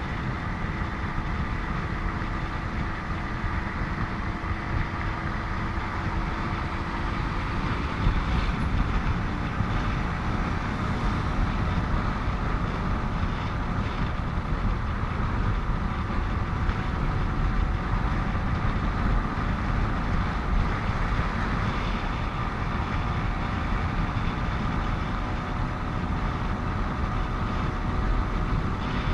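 Riding a motorcycle along a highway: steady wind rush on the microphone over the engine and surrounding traffic.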